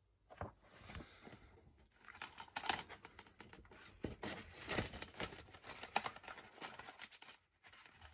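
Faint handling of a plastic Blu-ray keep case and its paper artwork: scattered clicks, rustles and scrapes.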